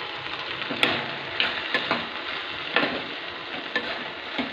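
Spatula stirring popcorn through sizzling butter and tomato ketchup in a pan on a gas stove. The steady sizzle is broken by about six sharp scrapes and taps of the spatula against the pan.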